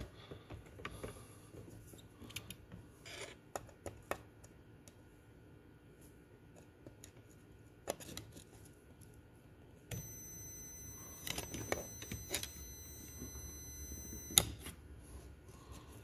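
Scattered light clicks and taps of hand tools working around a carburetor. About ten seconds in, a multimeter's continuity beep sounds as a steady high tone for about four seconds, showing a closed circuit through the throttle position safety switch, and it cuts off at a sharp click.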